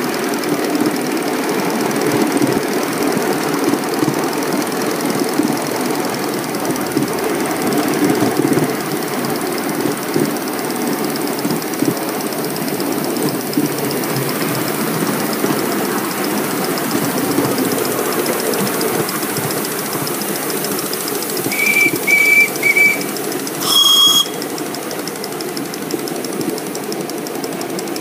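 Miniature ride-on steam locomotive running along its track with a steady mechanical running noise. About three-quarters of the way through, a steam whistle gives three short toots, followed a moment later by one brief blast of a second whistle of a different pitch.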